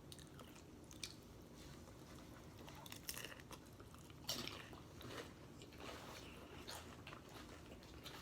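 Someone chewing and crunching nacho tortilla chips close to the microphone: scattered crisp crunches, the loudest about three and four seconds in.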